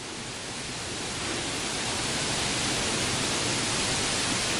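Steady rushing noise with no pitch or rhythm, swelling over the first second and a half and then holding level.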